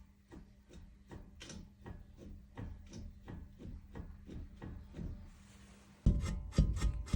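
Worn ball joint on a Chevrolet Cruze knocking as it is worked back and forth, about three to four knocks a second, turning into a much louder clatter about six seconds in. The knock comes from heavy play: the polymer liner inside the ball joint housing is completely broken up.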